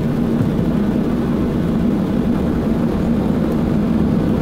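Cabin noise aboard a Boeing 737-800 taxiing, heard over the wing: the steady low hum of its CFM56-7B jet engines at taxi power.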